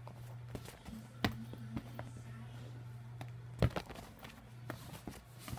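Quiet room tone: a steady low hum with a few scattered light taps and knocks, the loudest a little past halfway.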